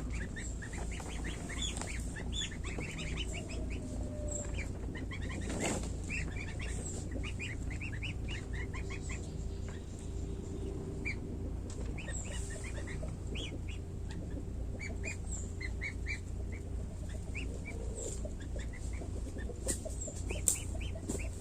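Week-old goose goslings peeping: many short, high chirps overlapping one another, over a steady low hum.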